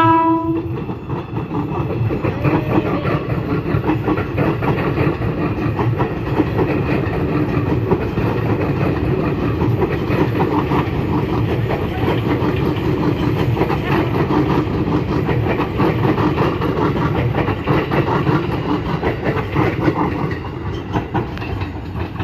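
Ex-JR 205 series electric commuter train gives a short horn blast, then rolls past close by, its wheels clattering rapidly over the rail joints and turnout for about twenty seconds, easing a little near the end.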